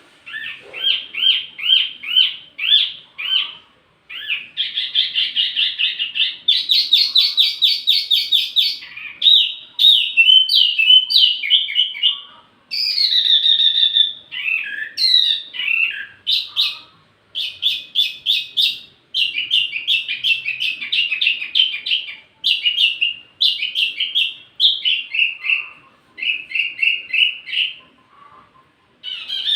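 Wambi mini songbird singing: fast runs of repeated high chirps, each phrase a second or a few seconds long, broken by short pauses.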